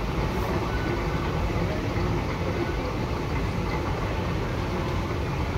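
Airport moving walkway running with a steady low rumble.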